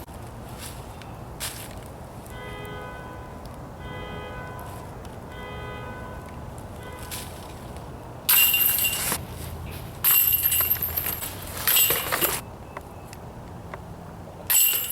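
Disc golf basket chains jingling and clanking in four loud bursts over the second half, as discs hit or are pulled from the chains. Three short pitched tones come before them.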